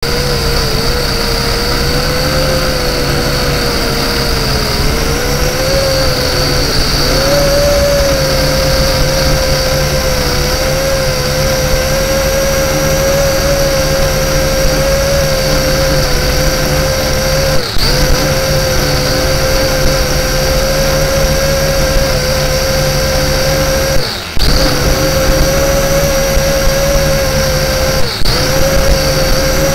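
LaTrax Alias quadcopter's motors and propellers whining steadily in flight, heard from the onboard camera. The pitch wavers at first, then holds steady. The sound drops out briefly three times in the second half.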